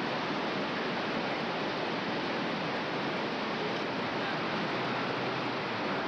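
Steady, even rushing noise with no distinct events, as of city traffic, wind or tape hiss on an old camcorder recording.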